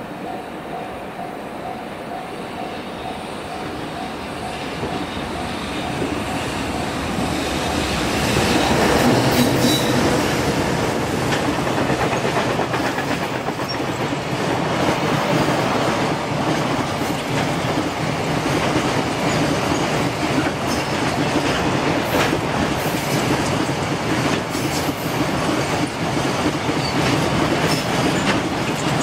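JR Freight EH500 dual-voltage electric locomotive hauling a container freight train past, growing louder over the first eight seconds or so. Then a steady rumble of the wagons rolling by, with the repeated clatter of wheels over rail joints.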